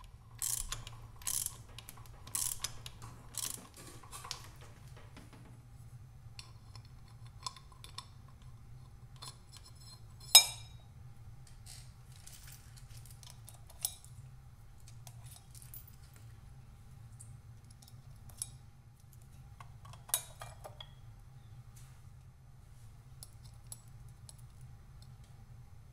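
Metal clinks and clicks of tools and clutch parts being handled on a motorcycle's exposed clutch: several quick clinks in the first few seconds, one sharp metallic clack about ten seconds in, then a few scattered light clicks, over a low steady hum.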